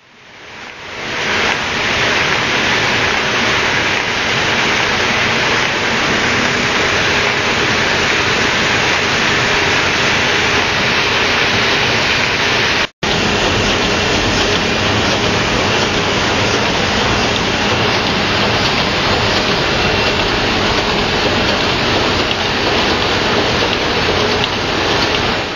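Müller Martini automatic book thread-sewing machine running, a loud, dense and steady mechanical clatter. It fades in over the first second or so and cuts out for an instant about halfway through.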